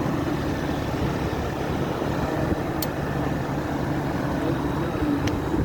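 Older York Stellar series outdoor heat pump unit running: the compressor and condenser fan give a steady hum with a low, even drone.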